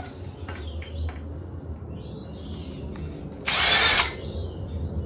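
Electric screwdriver whirring for about half a second, backing a screw out of a TV's back panel, after a few light clicks of handling.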